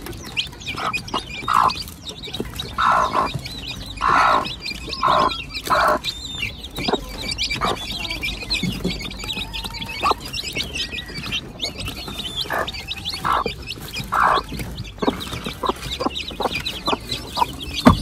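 Bantam mother hen clucking, a string of short clucks in the first six seconds and a few more later on, over the steady high, thin peeping of her chicks.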